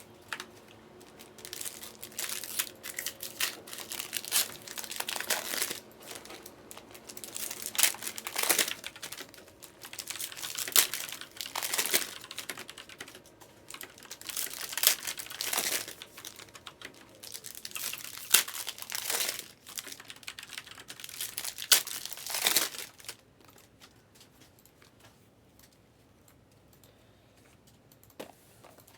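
Crinkling and tearing of foil trading-card pack wrappers and plastic wrap being ripped open by hand, in irregular bursts. It stops for the last several seconds.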